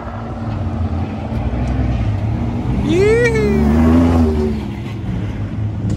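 Ford Raptor pickup truck's engine revving as it drives past close by on a dirt track. It is loudest about three to four seconds in, and its engine note rises and then drops as it passes.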